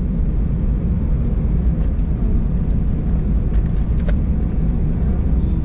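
Steady low rumble inside an Airbus A320's cabin as it taxis: the engines at low taxi power and the wheels rolling over the taxiway. A couple of faint clicks come about four seconds in.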